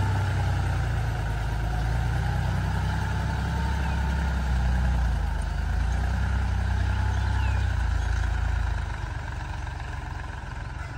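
Powertrac 439 DS tractor's three-cylinder diesel engine running steadily under load as it pulls a ridging implement through the soil, moving away. About nine seconds in it drops off and fades as the tractor moves farther away.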